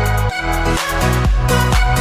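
Electronic dance music with a heavy, steady bass beat.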